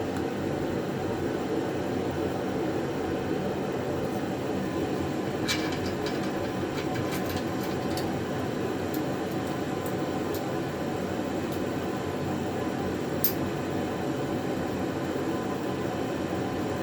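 A steady mechanical hum, like a running fan or air-conditioning unit, with a few light clicks and taps; the sharpest click comes in the last few seconds.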